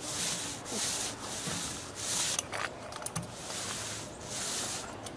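Stain applicator being stroked back and forth over wooden deck boards, working the stain into the grain: a repeated hissing scrape, stroke after stroke.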